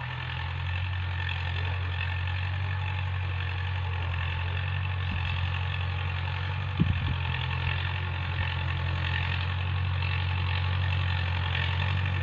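Tractor engine running steadily with a low drone that grows a little louder in the first second. There is a short knock about seven seconds in.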